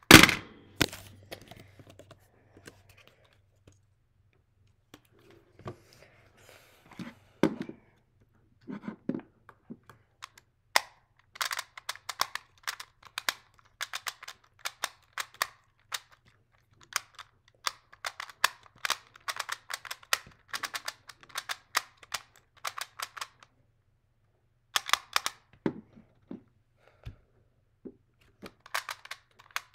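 Hands slapping down on a stackmat timer once at the start, the loudest sound, stopping the solve. Then a Rubik's Clock's dials and pins clicking rapidly in long runs as it is turned, with a few duller knocks of it being handled.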